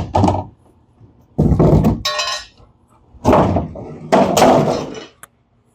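A fiberglass body panel being worked loose from a car's rear end by hand: four or five thunks and scraping knocks, one with a short metallic clink, and a sharp click near the end.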